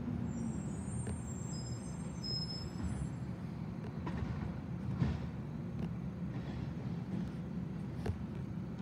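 Garbage truck's diesel engine running at a distance, a steady low rumble, with a few faint knocks.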